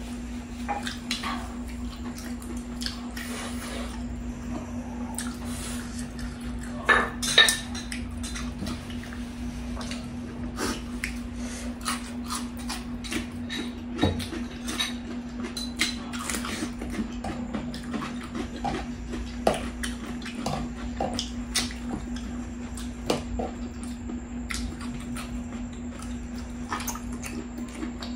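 Metal tongs and utensils clicking and scraping against ceramic plates and a grill pan, with chewing in between, over a steady low hum. The loudest clatter comes about seven seconds in.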